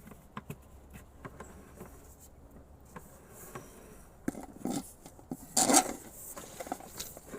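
Scraping and rubbing with scattered small clicks as a sewer inspection camera's push cable is fed into a drain cleanout. There are a few louder scrapes between about four and six seconds in.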